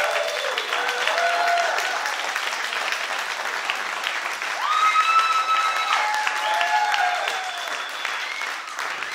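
Audience applauding and cheering, with voices calling out over the clapping, loudest about five seconds in.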